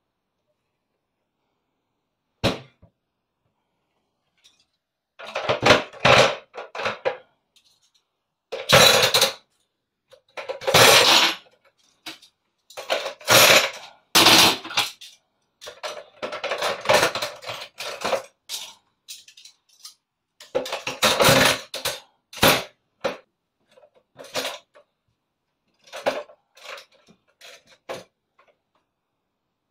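Stainless-steel cutlery clattering and jangling as handfuls of forks, spoons and knives are put into a stainless-steel cutlery drainer, in repeated bursts with short pauses between. A single click comes a couple of seconds before the clattering starts.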